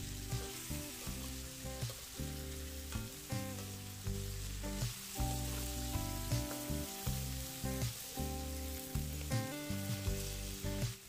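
Okra frying in oil and masala in a wok, sizzling while it is stir-fried, with the clicks and scrapes of a metal spoon against the pan. Soft background music with sustained chords runs underneath.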